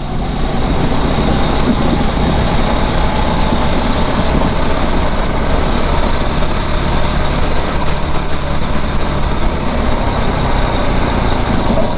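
A 9 hp kart's engine running at steady revs, heard close up from on board, with a steady rush of noise under it.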